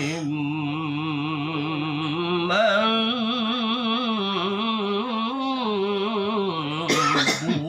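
A man's voice reciting the Quran in slow melodic chant, holding long wavering notes that step up in pitch about two and a half seconds in. The chant breaks off near the end with a few short noisy sounds.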